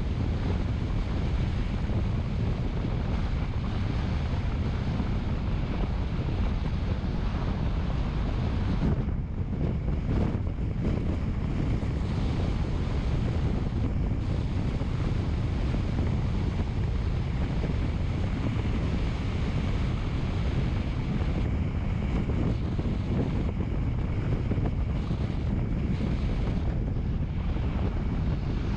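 Steady wind noise rushing over the microphone, a constant low-heavy roar with a faint steady high tone underneath.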